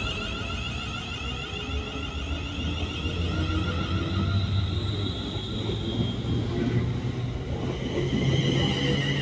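Class 350 Desiro electric multiple unit running along the platform, its traction motors giving a whine in several steady, wavering tones over the rumble of the wheels. Near the end the whine shifts in pitch and grows louder.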